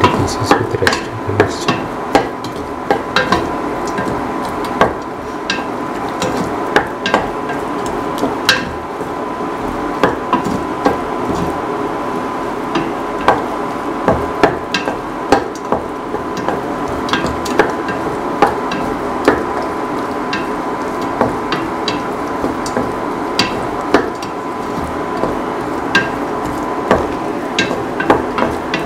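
A spatula knocking and scraping against a metal pot as tomatoes, onions and ginger are stirred in hot oil, with irregular sharp clinks over a steady frying sizzle.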